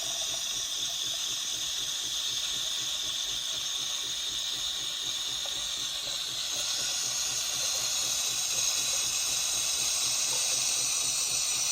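Jura Z10 super-automatic coffee machine frothing soy milk with steam into the cup: a steady hiss that grows louder about six seconds in.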